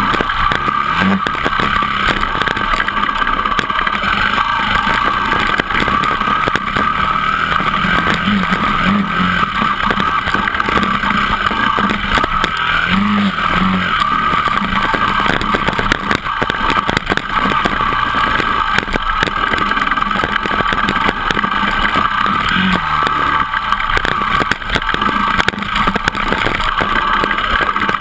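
Dirt bike engine running steadily under throttle on a rough trail, picked up by a camera on the bike, with many small knocks and rattles over the rocks. The engine note swells briefly a few times.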